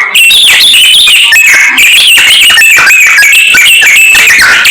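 Samyong songbird singing in full voice, a loud unbroken stream of quick, varied chirps and whistled glides up and down in pitch.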